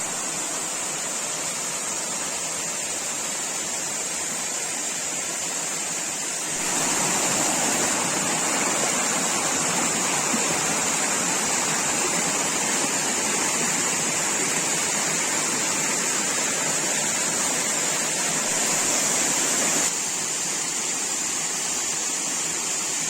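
Water rushing down a limestone waterfall as a steady even rush. It steps abruptly louder about a third of the way in and drops back near the end.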